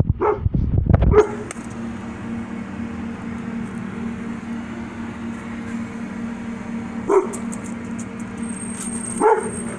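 A dog barking in single short barks: a couple in the first second, one about seven seconds in and another near the end, over a steady low hum.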